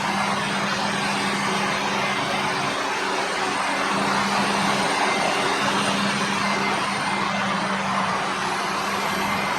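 Maize harvesting machinery running steadily: a constant engine drone under a loud, even rushing noise.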